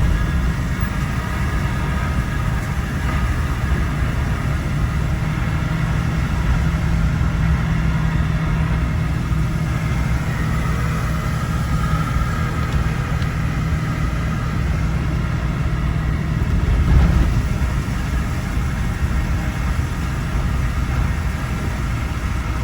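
Pickup truck engine running steadily while driving on a dirt road, with road noise and a steady low drone. About seventeen seconds in there is a brief louder low bump.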